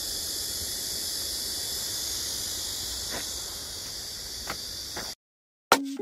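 Steady high-pitched drone of cicadas in summer trees, with two faint ticks near the end. It cuts off abruptly about five seconds in, and plucked-string music starts just before the end.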